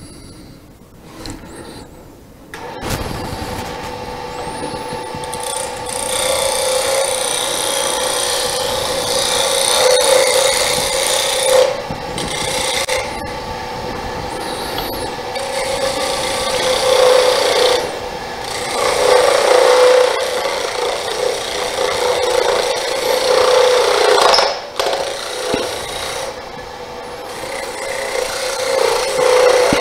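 Wood lathe starting up about three seconds in after a few handling clicks, then a turning tool cutting the spinning wooden duck-call blank: a steady motor hum under a loud scraping hiss that drops out briefly a few times as the tool comes off the wood.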